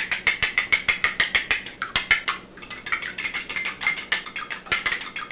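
A metal fork beating a raw egg in a small glass bowl: quick, even clinks of metal on glass, about seven a second, with a short pause about halfway.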